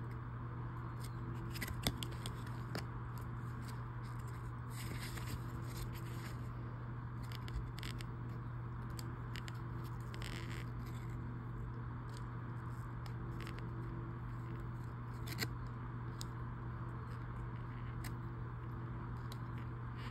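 Trading cards handled in gloved hands: occasional soft scrapes and clicks as cards slide off the stack, over a steady low hum.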